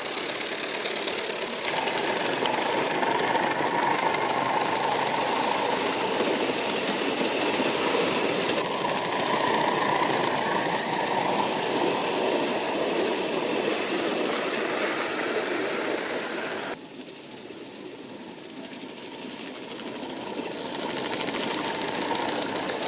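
38 class steam locomotives working a passenger train, with steady mechanical running noise. About 17 seconds in the sound drops suddenly, then builds back up.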